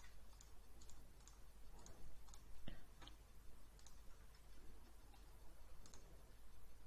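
Computer mouse clicking: about ten light, sharp clicks at uneven intervals, the loudest a little before the middle.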